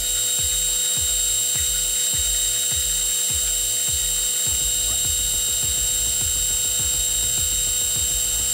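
Metal lathe running, a steady high whine over a fast low chopping pulse that grows busier about halfway through, with a file held against the spinning threaded steel shaft.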